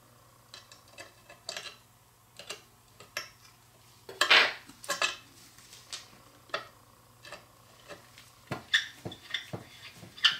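Light metallic clicks and taps of tweezers and tiny screws against a metal filter wheel plate as the screws are set back in. There is a louder clatter about four seconds in and a quicker run of small taps near the end.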